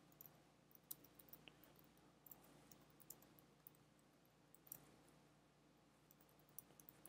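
Faint, irregular clicks of a computer keyboard being typed on, over near-silent room tone.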